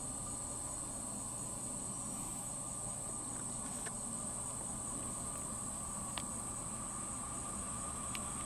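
Steady high-pitched drone of insects, with a fainter steady hum lower down that grows a little louder in the second half.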